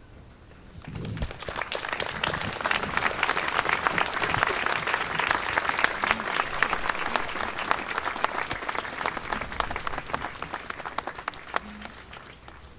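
A large crowd applauding. The clapping starts about a second in, swells, and tapers off near the end.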